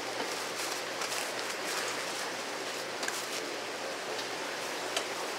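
Steady rushing hiss like running water, with faint scattered clicks and taps over it.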